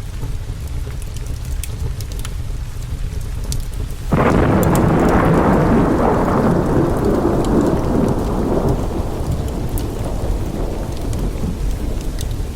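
Steady rain under a low rumble, with a sudden thunderclap about four seconds in that rolls on and slowly fades away.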